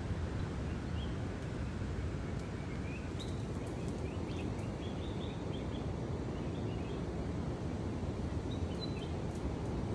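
Steady low outdoor rumble with faint, short bird chirps scattered through it, most of them in a cluster in the middle.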